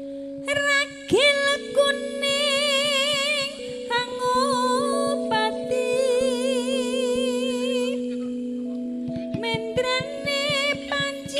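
A woman singing a Javanese song with strong vibrato over sustained keyboard chords and a steady pattern of light drum strokes. She enters about a second in with a rising slide.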